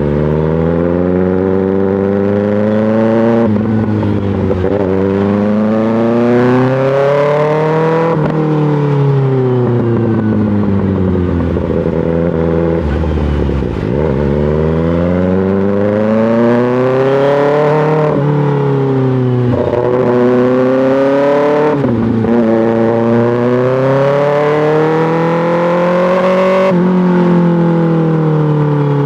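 Kawasaki ZX-6R inline-four sport bike engine through an M4 GP slip-on exhaust, repeatedly revving up and dropping back as it accelerates and shifts. There is a longer slow fall in revs from about a third of the way in.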